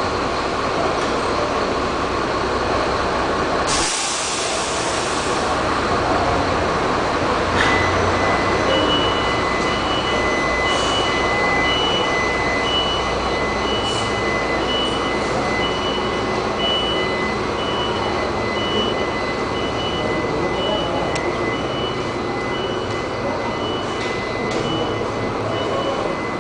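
City bus's diesel engine running as the bus pulls out of its bay. About four seconds in there is a loud burst of compressed-air hiss. From about eight seconds on a steady high tone sounds, with a short beep about once a second.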